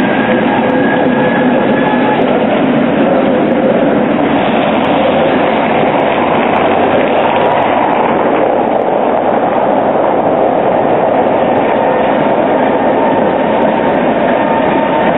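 Trams running on street track: the wheels and motors of a Tatra T3 tram passing close by, then a three-section articulated Tatra KT8 tram approaching through the junction. There is steady wheel-on-rail noise throughout, with a thin whine over it.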